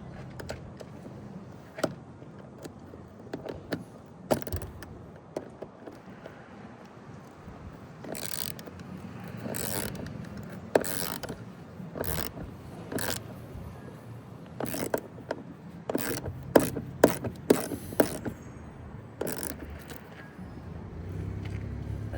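Hand tools working on the roof-rack bolts: scattered clicks and knocks, then, from about a third of the way in, a run of short ratcheting bursts that come in quick succession near the middle-to-late part.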